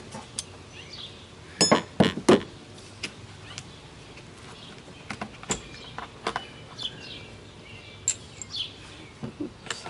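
Three sharp metal clinks of a socket ratchet and socket being handled and set down on a wooden workbench, the first with a brief ringing tone, about two seconds in. Birds chirp in the background for the rest.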